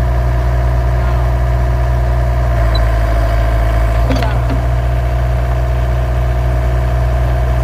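Heavy-equipment engine running steadily, working a little harder for about a second and a half around the middle, with a sharp knock just after.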